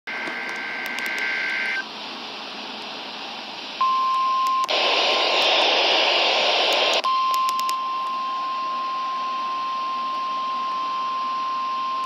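Midland NOAA weather radio receiving an alert: a brief two-tone data burst of the emergency alert (SAME) header, then hiss, then the steady 1050 Hz Weather Radio alert tone starting about four seconds in. The tone is cut for about two seconds by loud static as the radio is tuned off the channel to 162.425 MHz, then comes back and holds.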